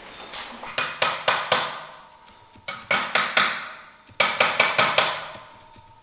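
Clicker adjuster at the bottom of a KYB SSS motocross fork being turned through its detents, three quick runs of four or five sharp clicks each with a metallic ring from the fork.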